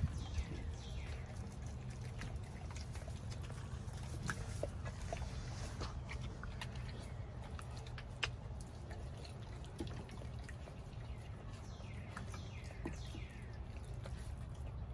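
Pit bull chewing and tearing at a whole raw chicken: wet, sloppy chewing broken by scattered sharp crunches.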